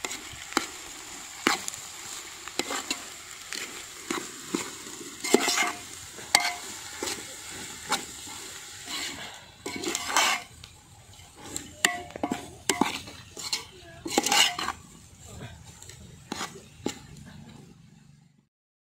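Steel spoon scraping and knocking irregularly against a metal cooking pot as chopped onions are stirred together with just-added ground spices (turmeric, cumin and coriander powder), mixing the masala into the frying onions.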